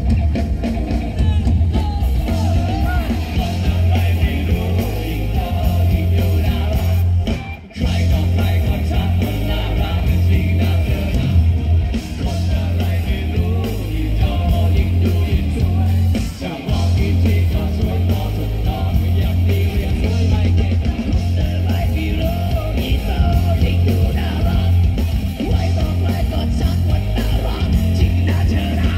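Live rock band playing loud with a vocalist singing and shouting over electric guitar, bass guitar, drums and keyboard, the bass heavy in the mix. The music breaks off for a moment about seven and a half seconds in, then comes straight back.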